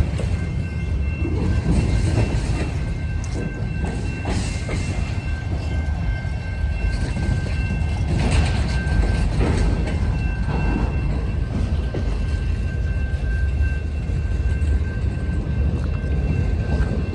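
Freight train cars rolling past close by: a steady low rumble with clicking of wheels over rail joints, and a steady high-pitched squeal held over it.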